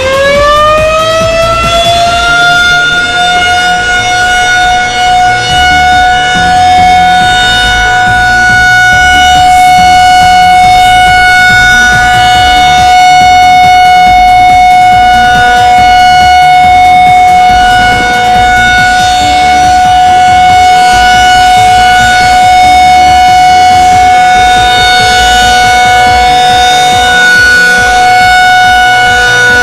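Tornado warning siren finishing its wind-up in the first couple of seconds, then holding one loud steady tone with strong overtones.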